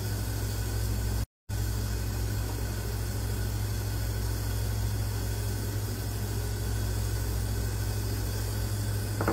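Steady low hum with an even hiss over it, like a fan or appliance running or electrical hum, cutting out completely for a moment just over a second in.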